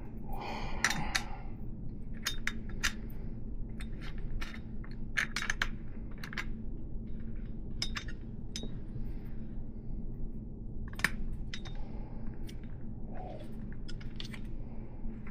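Small metal bicycle parts clinking and tapping by hand: axle nuts, washers and spacers on a BMX hub axle knocking against each other and the fork, in irregular scattered clicks, over a steady low hum.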